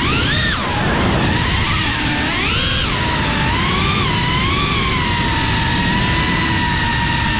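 Drone's electric motors and propellers whining, the pitch swooping up and down with the throttle for the first few seconds and then holding steady, over a rushing of air.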